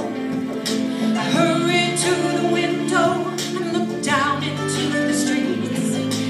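A woman soloist singing a slow gospel song into a microphone over steady instrumental accompaniment.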